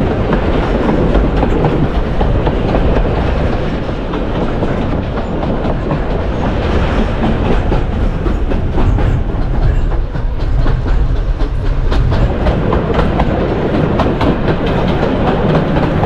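Wooden heritage railway carriage rolling along the track: a steady rumble with the wheels clicking over the rails.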